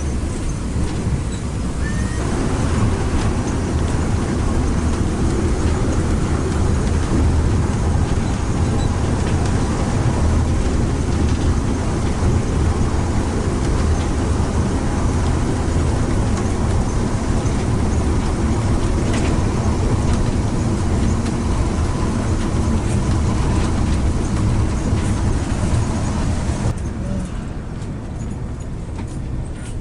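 Intercity bus underway, a steady engine rumble and road noise that drops somewhat quieter near the end.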